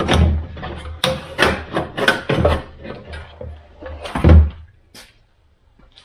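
Air filter being pulled out of its housing in the engine bay of a BMW M6: a run of short scrapes and knocks, with one louder thump about four seconds in.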